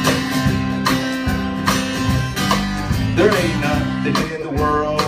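Live acoustic country band playing a song's instrumental intro: acoustic guitar strummed in a steady rhythm over upright bass notes.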